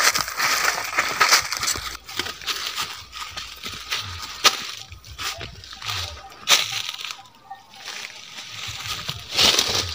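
Footsteps crunching through dry leaf litter and twigs, an irregular run of crackles and snaps as someone walks through dry undergrowth.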